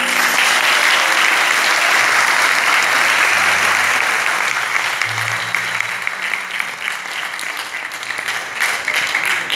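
Audience applauding: dense, steady clapping that starts as the music stops and slowly thins out, with single claps standing out near the end.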